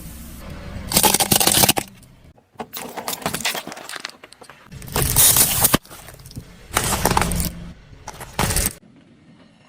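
Brittle things being crushed under a car's tyre: about five bursts of crunching and crackling, with clinking bits, separated by short pauses.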